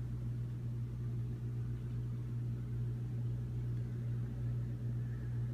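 Steady low electrical hum of running aquarium equipment, with a ladder of evenly spaced overtones and a faint hiss above.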